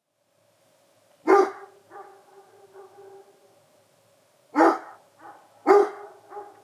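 A dog barking three times: once about a second in, then twice close together near the end, each bark trailing off.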